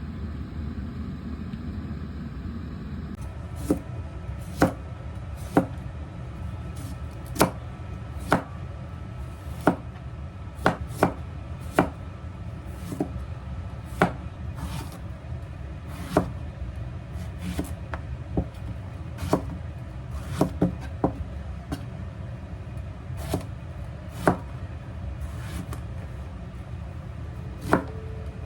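Kitchen knife chopping on a cutting board in single, unhurried strokes, roughly one a second, starting a few seconds in.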